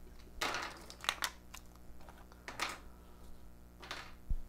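Small plastic pill-organizer boxes clicking and rattling as they are pulled out of a zippered fabric case and handled, with several short scraping rustles and sharp clicks spread through.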